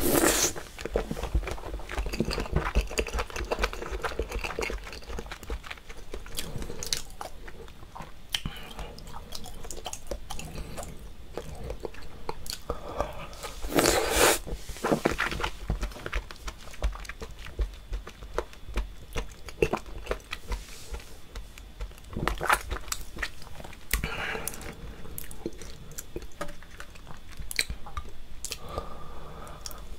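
Close-miked chewing of chewy seafood: wet mouth clicks and smacks throughout, with louder bites at the start and again about halfway through.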